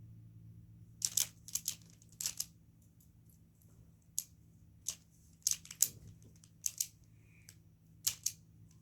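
A Rubik's cube being turned by hand: quick plastic clicks, some single and some in clusters of two or three, with pauses between the turns.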